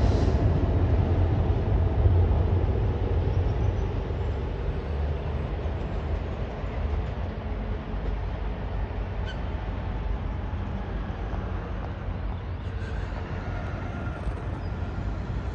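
Diesel locomotive running light, its engine rumble fading steadily as it moves away.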